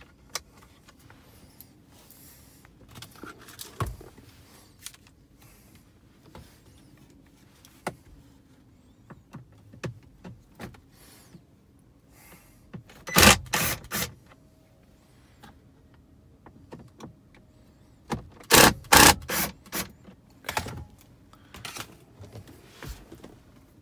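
Cordless power screwdriver whirring in two clusters of short bursts, about 5 s apart, as it backs out the screws holding a car's metal audio control module in the dash. Light clicks and knocks of parts being handled fall between the bursts.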